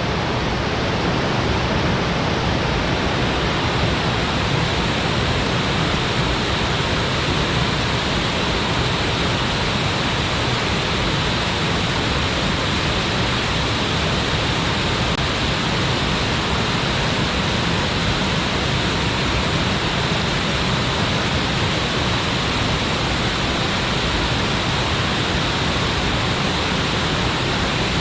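Waterfall pouring steadily into its plunge pool: a loud, even rush of falling water.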